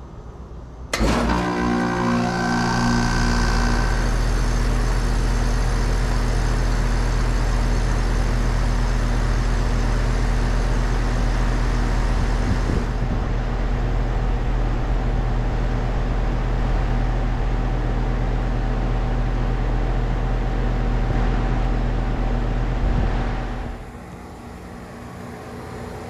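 A 2021 Amana ANZ14 3-ton heat pump outdoor unit starting up in heat mode: the compressor and fan kick on suddenly about a second in, then run with a steady hum. The level drops sharply about 23 seconds in.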